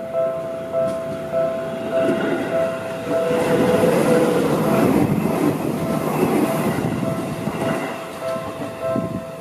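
Railway level crossing alarm ringing steadily, about two strikes a second, while a Seibu Ikebukuro Line train passes over the crossing. The train's running noise swells between about two and eight seconds in and is the loudest sound.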